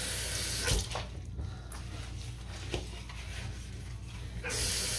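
Bathroom sink faucet running onto a wet cloth, shut off under a second in; then quieter wiping of the basin with a wet cloth and a couple of light knocks, and the tap running again near the end.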